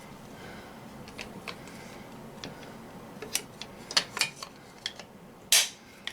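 Light clicks and taps of metal and plastic parts from handling a CO2 air pistol while the CO2 cartridge is seated and the grip readied, with a few quick clicks past the middle and one sharper knock near the end.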